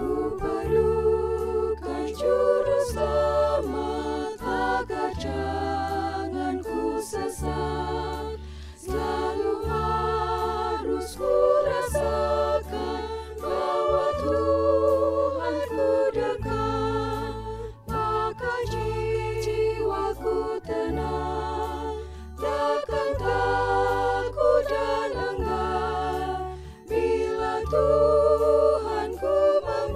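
Women's choir singing an Indonesian hymn in parts, with steady low bass notes under the voices that change every couple of seconds.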